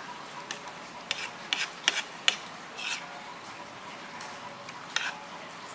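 Spoon and fork clinking against a plate while eating: a quick run of sharp clinks about a second in, a few more after, then a single clink near the end, over a steady background din.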